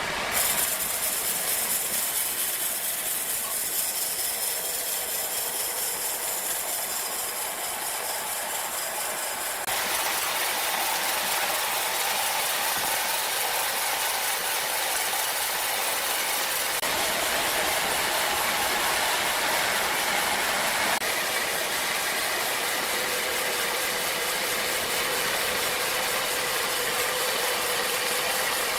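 Sawmill machinery running, a dense steady mechanical noise with faint held tones; its character shifts abruptly about a third of the way in and twice more later.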